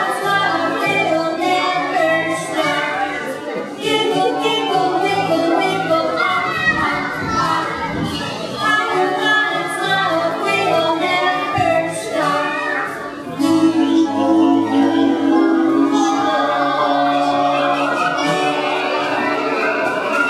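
A group of voices singing a song together, growing louder on a long-held chord about two-thirds of the way through.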